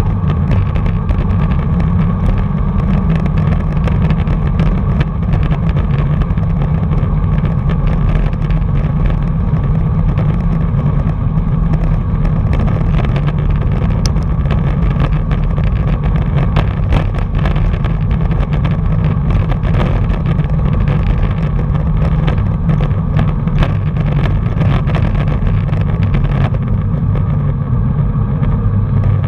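Wind buffeting the microphone of a bike-mounted camera while riding, a loud, steady low rumble with tyre noise from the road, broken by frequent small clicks and knocks.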